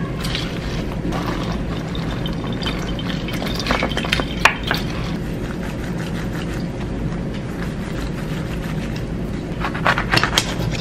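A lemon half twisted and squeezed on a manual plastic citrus reamer over a glass jar, the juice squelching and dripping. About halfway through, a whole lemon is pressed and rolled on the countertop under a palm. Scattered short squelches and clicks sound over a steady low hum.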